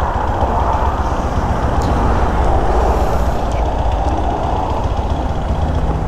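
Steady, loud vehicle noise: an even rushing sound over a constant low rumble, as of motorcycles on the move.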